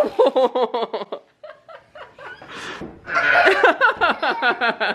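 Hearty laughter in quick bursts: a bout in the first second and a longer, louder one over the last two seconds, with a short breathy puff between them.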